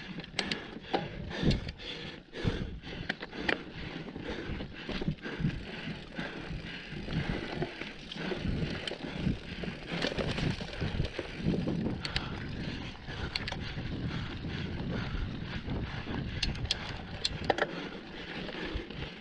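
Mountain bike ridden over a dry dirt trail: constant tyre noise with frequent rattles and knocks as the bike goes over bumps.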